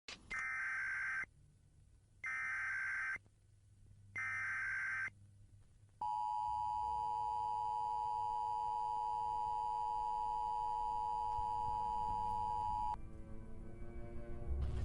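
Emergency Alert System broadcast tones: three short bursts of the screeching digital SAME header, then the two-tone EAS attention signal held steady for about seven seconds before it cuts off sharply.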